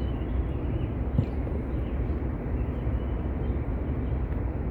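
Steady low rumbling background noise, with one faint click about a second in.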